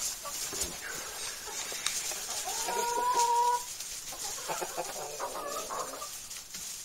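A flock of chickens clucking, with one long, drawn-out call about two and a half seconds in and shorter calls after it.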